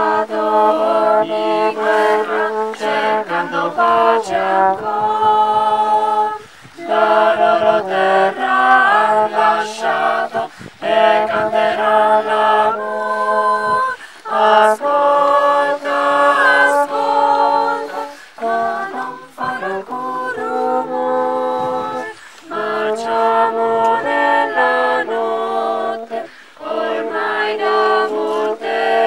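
A choir of mixed voices singing unaccompanied, in sung phrases separated by short breaks for breath.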